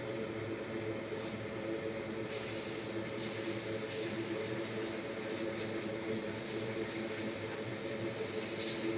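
Steady hiss of blowing air that starts about two seconds in, over a low machine hum.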